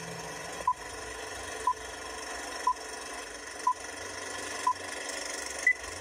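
Vintage film-countdown sound effect: steady crackling, whirring film-projector noise with a short beep once a second, five times, then a single higher-pitched beep near the end.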